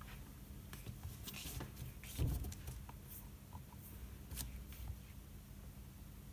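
Faint clicks and handling noises from fingers tapping and holding a tablet, with a soft thump about two seconds in and a sharper click a little past four seconds, over a low steady hum.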